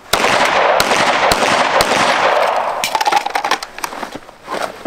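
Gunshots on a shooting range: a loud, sudden crack opens a dense rush of noise lasting nearly three seconds, followed by several lighter sharp cracks.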